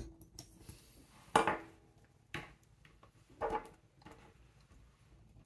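A sharp click at the start as a spring bar snaps free of the watch lug. It is followed by three clinks of small metal parts about a second apart, the first the loudest, as the metal expansion bracelet and tools are handled on the bench.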